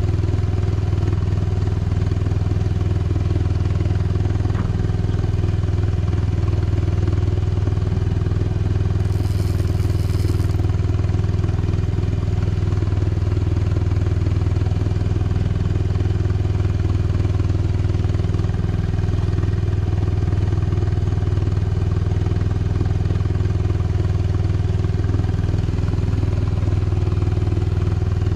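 A motor on a fishing boat running steadily: a constant low drone with no change in speed.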